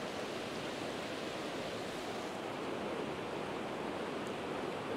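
A shallow rocky trout stream running over a riffle: a steady rush of water.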